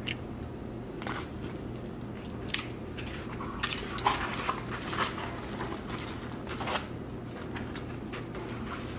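Scattered rustles and clicks of takeout food containers being handled, over a steady low hum.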